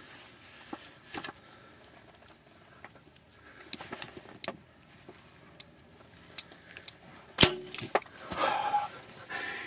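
A bow shot: one sharp, loud snap of the string releasing about seven and a half seconds in, followed quickly by a couple of smaller clicks. Faint handling clicks come before it, and a short stretch of handling noise follows.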